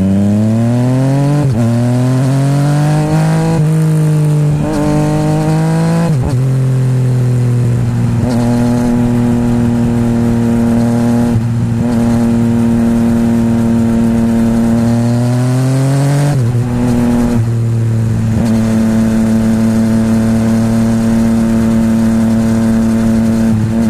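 Yamaha MT-09's three-cylinder engine breathing through a full titanium Akrapovic exhaust with no baffle, accelerating hard up through the gears. The revs climb and drop with three quick upshifts in the first six seconds, then hold steady while cruising. There is another climb and upshift about sixteen seconds in, followed by steady cruising.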